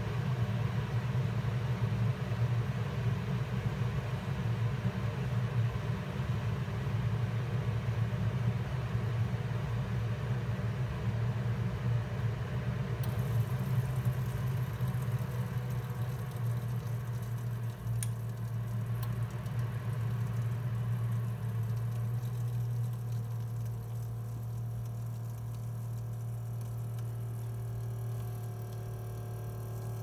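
Aicok single-serve coffee maker's pump humming steadily as it brews, easing off over the last several seconds. Only a thin trickle of water comes out: the machine is pulling up very little water, its typical fault.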